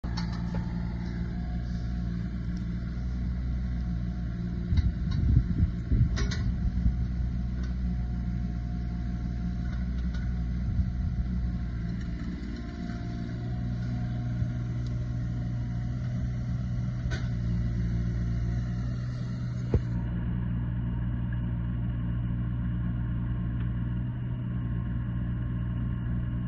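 JCB 16C mini excavator's diesel engine running steadily, with a few metallic clanks and knocks about five to six seconds in and single knocks later on.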